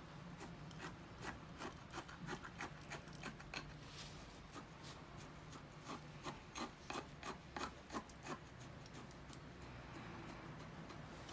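A wooden chopstick jabbed again and again into granular bonsai soil in a small pot, making a quick run of short, gritty scrapes about three a second that stops about eight seconds in. It is the soil being worked down among the roots to fill the gaps during repotting.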